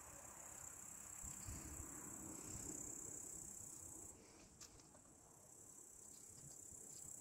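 Crickets chirring in a faint, steady high-pitched trill. Underneath, low handling noise from the fishing-rod parts between about one and four seconds in, and a single sharp click a little after four and a half seconds.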